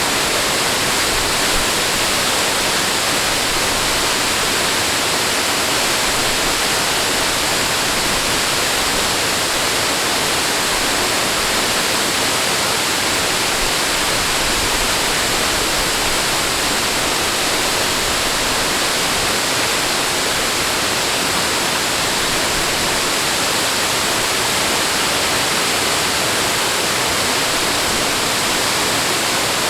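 Steady rushing water: a constant, even hiss that stays the same throughout.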